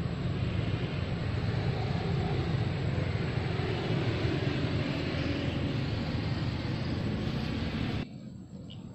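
Steady low rumbling noise with no clear rhythm or pitch, cutting off abruptly about 8 seconds in.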